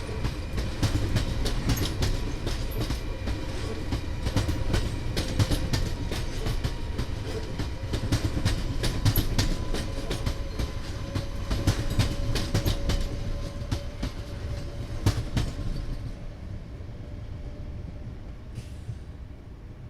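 A train passing, its wheels clacking rapidly over the rail joints above a steady rumble, with a faint steady whine. The clacking thins out and the sound fades over the last few seconds as the train moves away.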